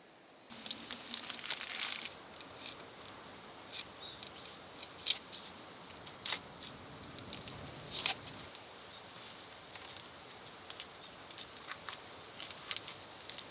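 Irregular crinkling and crackling handling noise with scattered sharp clicks and snaps, a few louder ones standing out, like something being crumpled or torn.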